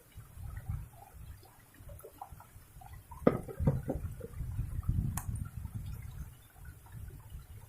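Water splashing and dripping, with an uneven low rumble underneath. A sharp knock comes about three seconds in, with a few smaller ones just after it, and a short click comes about five seconds in.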